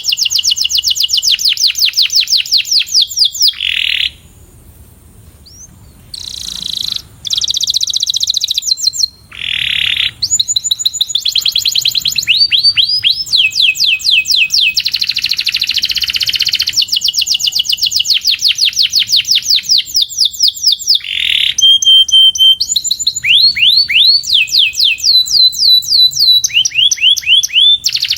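Canary singing a training song: long rapid trills of repeated down-sweeping notes, one phrase after another, with short pauses about four seconds in and again near ten seconds.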